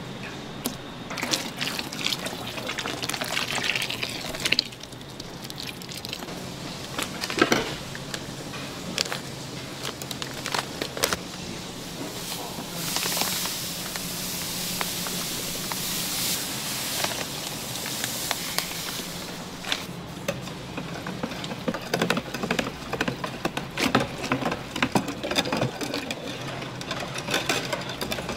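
Food-preparation sounds: scattered knocks and clinks of utensils and containers over a steady low hum, with a stretch of rushing, liquid-like noise about halfway through.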